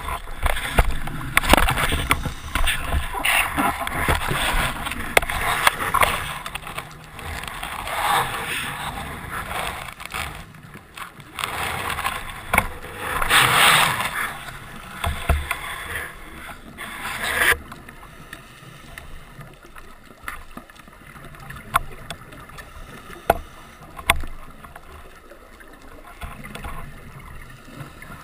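Underwater sound of a scuba diver breathing through a regulator: several rushes of exhaled bubbles, the biggest about halfway through. After that comes a quieter water hiss with a few sharp clicks.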